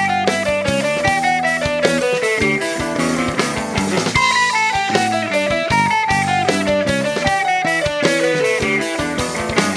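A live rock band (electric guitar, bass guitar, keyboard and drum kit) playing an instrumental passage, with a quick descending run of notes repeated every couple of seconds over the drums.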